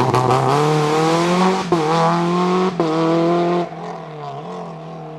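Rally car's engine accelerating hard, its pitch climbing, with two quick upshifts about a second and a half and nearly three seconds in. It then fades as the car pulls away.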